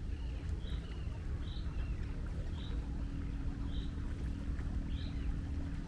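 Seagulls calling, short high cries about once a second, over a steady low rumble of the sea and a faint steady hum.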